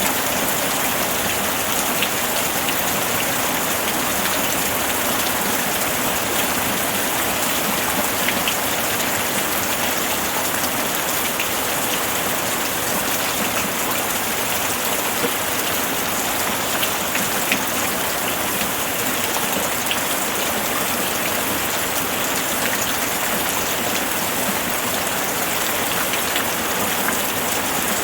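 Steady rainfall: a dense, even hiss of rain with scattered individual drops ticking on a surface.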